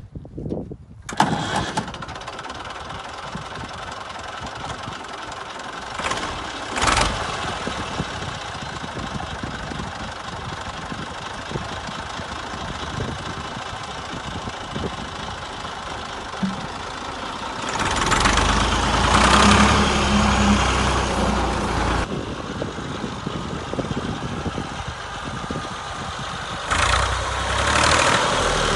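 Massey Ferguson 135 tractor engine starting, catching about a second in, then running steadily. It is revved up harder for a few seconds just past halfway and again near the end.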